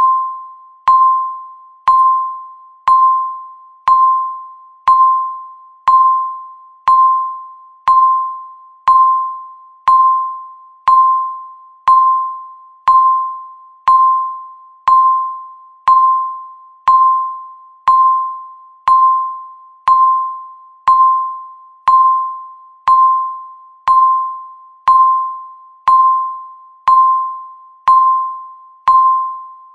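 Countdown timer's tick sound: a short, bell-like pitched tick struck once every second, each dying away quickly, marking off the seconds.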